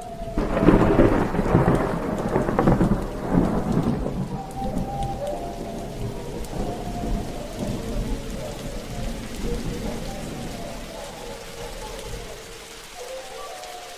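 A thunderstorm: a heavy thunderclap about half a second in, rumbling and dying away over several seconds, over steady rain. A faint wavering tone is held underneath throughout.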